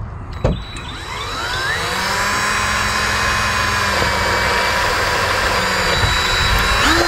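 Power drill motor winding up in pitch over about a second, then running at a steady whine, cut off abruptly at the end. A single knock sounds about half a second in.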